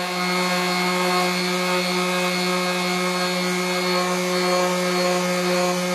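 Stanley random orbital sander running at a steady speed while sanding down the first coat of sanding sealer on a wooden board: an even motor hum with the hiss of the abrasive pad on the surface.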